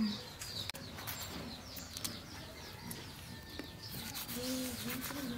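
Background birds calling: small birds chirping throughout, and from near the end a run of low repeated calls.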